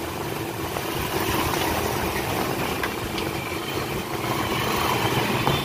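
Steady mechanical hum in the background, with a few faint metal clicks from an Allen wrench on the fuel-pump bolts.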